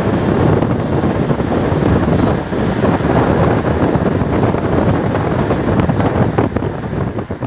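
Wind buffeting the microphone of a phone filming from a moving car, mixed with the car's road noise: a loud, uneven rushing.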